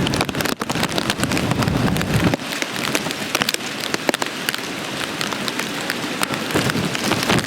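Heavy hurricane rain pelting down, with many sharp drop hits and a low wind rumble that drops away a couple of seconds in.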